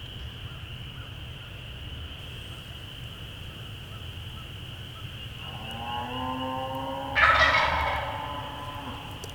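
Wild turkey gobbler gobbling once, loud and close, about seven seconds in: a rising lead-in that breaks into a rattling gobble lasting about a second.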